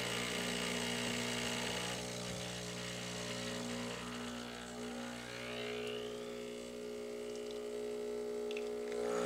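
Breville Barista Express espresso machine's vibratory pump buzzing steadily as it pulls a single shot, with pressure building before the espresso starts to flow.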